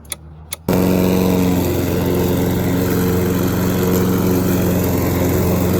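Gas lawn mower engine running steadily. It comes in abruptly less than a second in, after a couple of small clicks.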